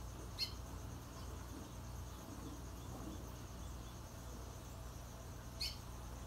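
Caged Trinidad bullfinch giving two short, sharp high chirps about five seconds apart, over a steady low hum.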